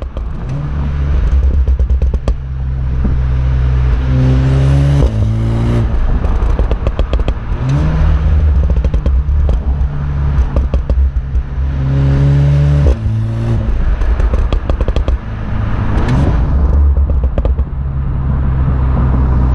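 Exhaust of a VW Golf 7R's turbocharged 2.0-litre four-cylinder, heard at the twin tailpipes while driving. Twice the engine revs up with rising pitch, and when the throttle is lifted the exhaust crackles and pops on overrun, from software with a reprogrammed overrun fuel cut-off.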